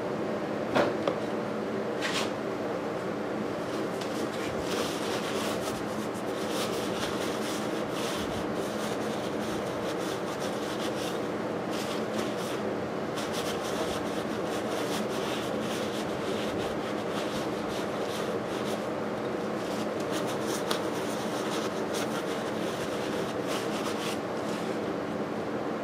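Paper towels rubbing and scrubbing over a cast-iron engine cylinder block as it is wiped dry, in irregular scratchy strokes, over a steady background hum. A couple of sharp knocks about a second in.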